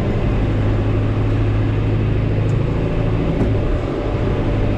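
Tractor engine running steadily with a constant low drone, the 2850 working on the diet feeder.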